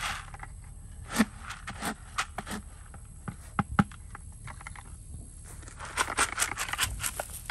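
Molasses-mixed shelled corn being stirred and scraped in a plastic bucket, with a few sharp knocks, then poured out onto the ground in a dense rattling patter about six seconds in.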